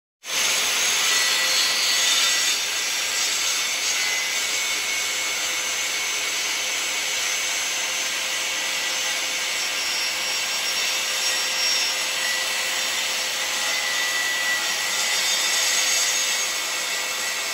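Guild 1400 W 185 mm circular saw cutting through hardwood plywood with a ripping blade: a steady, continuous cut along a diagonal line, with a faint whine running through it.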